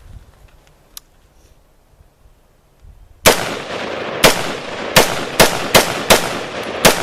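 A faint click about a second in, then from about three seconds in a string of loud, sharp bangs, roughly one to two a second, each with a short echoing tail, like gunshots or firecrackers.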